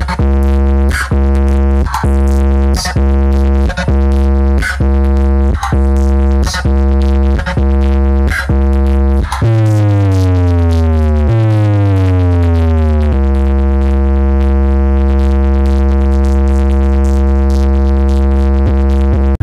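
Electronic bass-test track played very loud through a competition DJ sound-box system as a vibration sound check. A deep, steady bass drone carries a sharp beat about once a second, then gives way about halfway through to two falling pitch sweeps and then a long held bass tone.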